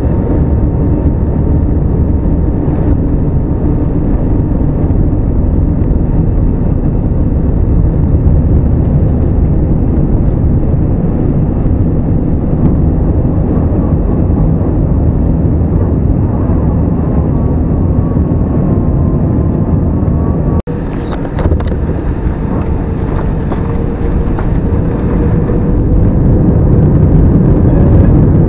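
Jet airliner engines at takeoff power heard from inside the passenger cabin: a loud, steady rush with a faint whine through the takeoff roll and climb-out. About two-thirds of the way in it cuts abruptly to a slightly quieter steady cabin drone, which grows louder near the end.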